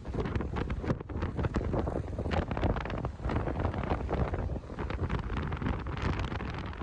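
Coastal wind gusting across the microphone: a rough, low rumble that swells and dips unevenly.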